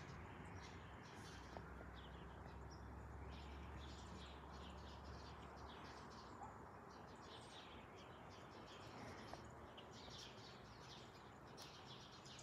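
Small birds chirping in many short, high, repeated calls, faint, over a steady low rumble.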